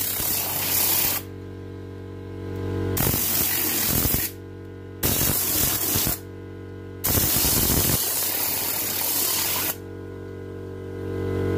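Compressed-air blow gun blasting over an engine bay in four bursts of loud hiss, the last and longest running about two and a half seconds. Background music with steady held notes is heard between the blasts and carries on after them.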